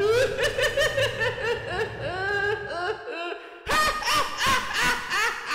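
A man laughing wildly in rapid bursts: the Joker's laugh. It breaks off for about half a second a little past the middle, then starts again.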